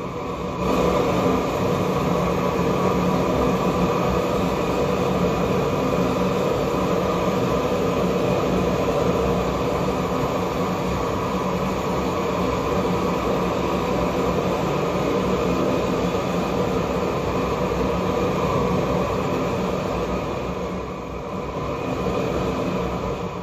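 Gas torch flame burning steadily as it heats an aluminum branding iron; the noise steps up about a second in and dips briefly near the end.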